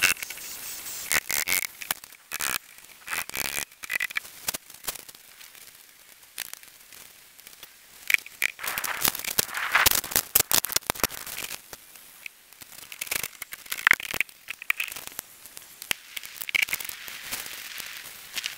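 Camp-work handling noise: a busy string of sharp clicks, scrapes and crackles as wooden poles are handled and lashed, then steel bowls are handled at the water's edge. Near the end a small wood fire crackles.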